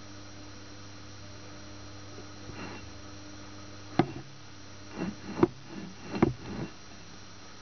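Steady low electrical hum over faint hiss, broken by a run of sharp clicks and knocks between about four and seven seconds in.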